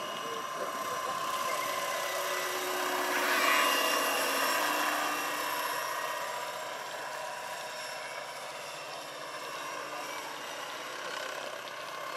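Electric Vario Bell-212 scale model helicopter in flight: its electric drive and main rotor make a steady whine over rotor noise, growing louder about three to four seconds in, then easing off and holding steady.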